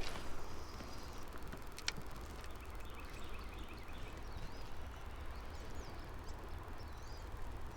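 Birds chirping faintly over a steady low background rush, with a couple of sharp clicks.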